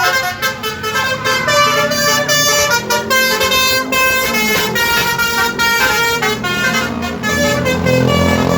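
A tour bus's 'telolet' horn, a set of musical air horns, playing a World Cup tune as a run of stepped notes. A low rumble grows under it near the end.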